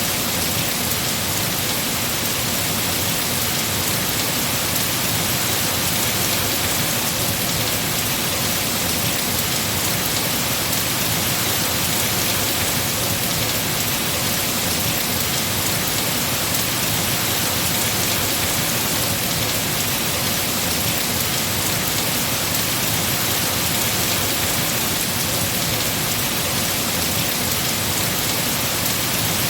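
Heavy rain falling steadily on tree foliage, a dense even hiss.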